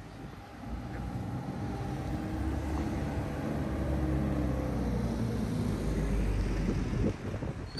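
Street traffic: a motor vehicle's engine rumble building as it passes close by, dropping off about seven seconds in.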